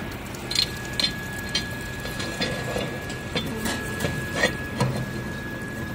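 Irregular metal knocks and clicks, about a dozen, from hands and tools working the die and its clamp on a chain link fence machine. Under them runs a steady low hum and a thin high whine.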